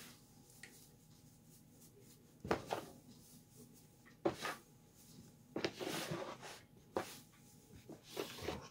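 Hands mixing shredded cut tobacco in a plastic basin: a handful of short, irregular rustles as the leaf is lifted, turned and dropped back into the tub.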